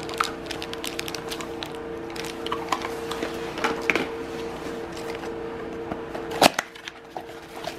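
Cardboard parts boxes and packaged parts being handled: scattered small clicks, taps and cardboard rustles, with one sharp crack about six and a half seconds in. A steady low hum runs beneath and stops just after the crack.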